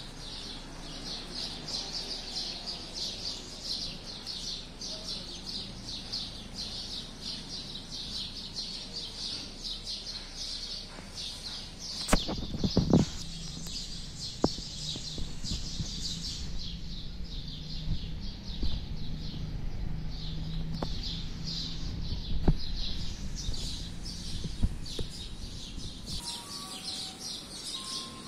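Birds chirping rapidly and continuously, with a cluster of loud knocks about twelve seconds in and a few sharper knocks later.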